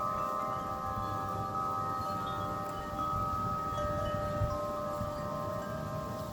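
Wind chimes ringing in gusty wind: several long, slowly fading notes overlapping, with a new lower note struck about four seconds in. A low rumble of wind on the microphone runs underneath.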